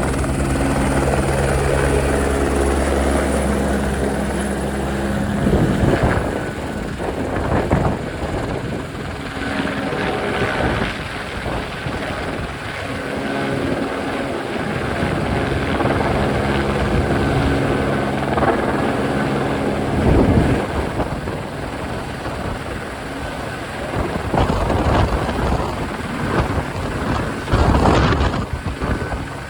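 Helicopter running close by, its engine and rotor hum strong at first, fading after about five seconds and returning midway, with gusts of noise throughout.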